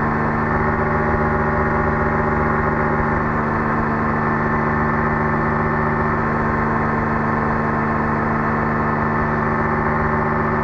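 Rotax 503 two-stroke twin engine and propeller of a Quad City Challenger II ultralight running steadily at cruise power, heard from the cockpit in level flight.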